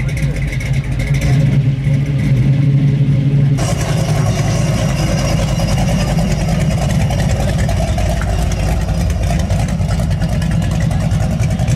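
Two Chevrolet Camaro muscle-car engines, one after the other. First a second-generation Camaro's engine idles with a steady low rumble. About three and a half seconds in there is an abrupt cut to a first-generation Camaro's engine, which runs louder as the car rolls slowly away.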